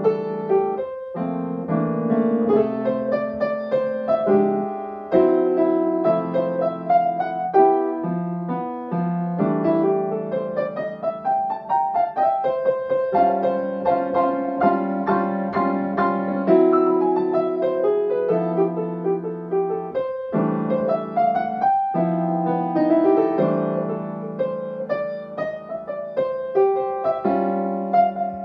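Grand piano played solo: chords under a melody line, with a few short breaks between phrases.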